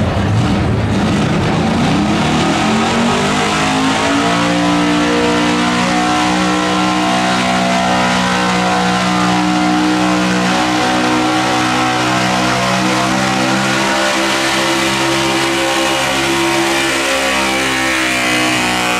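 Pickup truck engine at full throttle pulling a weight-transfer sled: it revs up over the first few seconds as the truck launches, then holds steady at high revs under heavy load.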